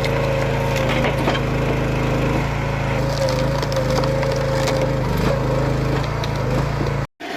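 Petrol-engine firewood splitter (a 16-horsepower, 459 cc engine driving a two-stage hydraulic pump) running steadily, with wood cracking and splintering as logs are split. The sound cuts off suddenly near the end.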